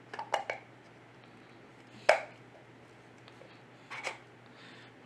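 Hard plastic of a satellite antenna dome and its pole-mount bracket clicking and knocking as the bracket is handled and fitted on: about four short sharp clicks, the loudest about two seconds in.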